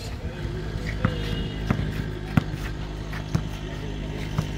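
A basketball bouncing on a paved court, five sharp bounces at uneven spacing, over steady background music.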